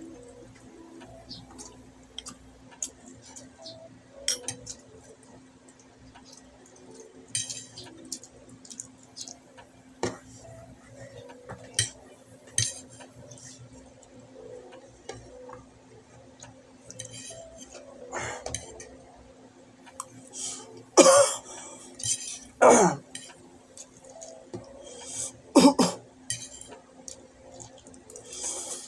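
Metal spoon and fork clinking and scraping against a dish during eating, with scattered short clicks and mouth noises. Several loud, short vocal sounds come in the second half.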